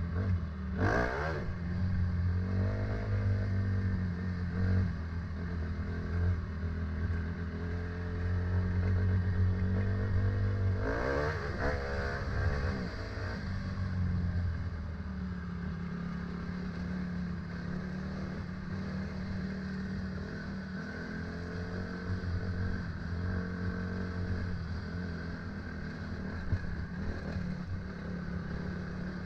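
A vehicle engine running steadily, its pitch rising and falling about a second in and again around eleven to thirteen seconds in.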